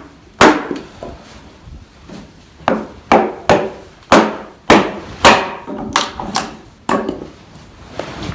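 Wooden mallet striking the poll of a hatchet set into a squared timber, chopping off waste wood. A run of sharp wooden knocks comes about two a second, with a couple of lighter taps in between.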